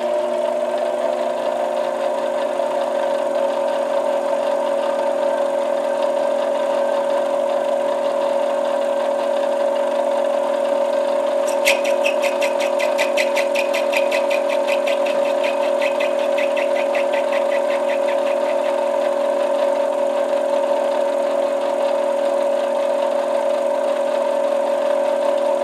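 Benchtop metal lathe running with a steady motor and gear whine while facing the end of an acrylic pipe-stem blank. For several seconds around the middle there is a rapid run of ticks as the cutting tool bites into the spinning acrylic.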